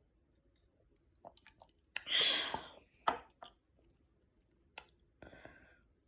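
Close-up eating sounds: a person chewing food with scattered wet mouth clicks and smacks, and one louder, noisier mouth sound lasting under a second about two seconds in.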